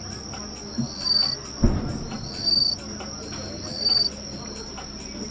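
Night insects chirping: a steady high trill with a louder call repeating about every second and a half. A single low firework boom comes about a second and a half in.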